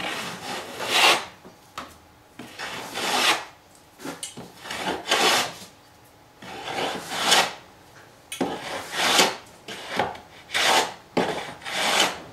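Stanley No. 50 combination plane cutting a bead along the edge of a wooden cladding board in a run of short strokes, about one a second, each a brief hiss of the iron shaving the wood. This is the usual way of planing a moulding: short strokes starting at the far end and working back, which keeps the plane from clogging.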